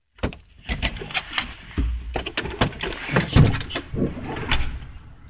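Handling noise: irregular clicks, knocks and rustling that start suddenly just after the start, with a low rumble under them.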